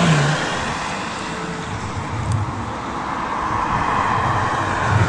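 Steady rushing noise of passing road traffic, swelling as a vehicle goes by about four seconds in, with some wind on the microphone.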